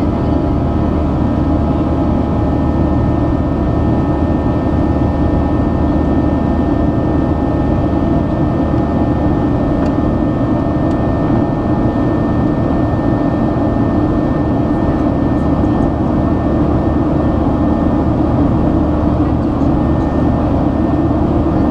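Boeing 737-800's CFM56-7B turbofan running steadily during the climb after takeoff, heard inside the cabin: a deep rumble with several steady whining tones above it.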